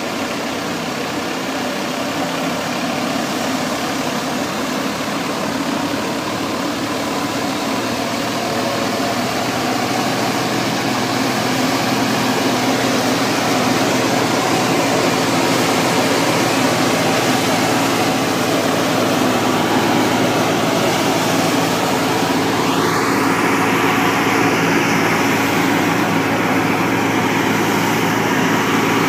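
Tractor-powered wheat thresher running steadily, driven by the Al-Ghazi tractor's diesel engine: a continuous mechanical drone with a steady low hum under dense hiss from the threshing drum. The hiss shifts in pitch about three quarters of the way through.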